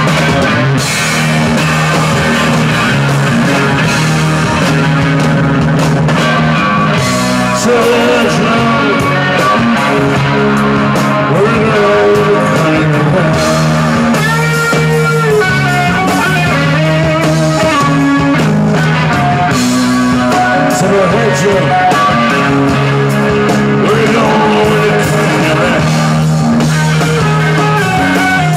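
Live rock band playing: electric guitar over electric bass and a drum kit, loud and continuous.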